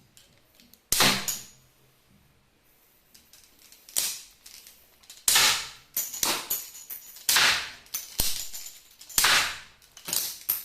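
Lego-brick pistol firing about six shots, each a sharp snap that fades quickly, spaced one to three seconds apart, with lighter clicks of the mechanism in between.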